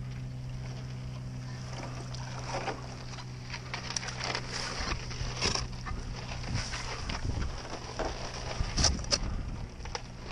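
Broken thin ice and floating ice shards clicking and crunching against a paddleboard and its paddle as it is paddled through them. The sharp, irregular clicks come in clusters, most densely about nine seconds in, over a steady low hum.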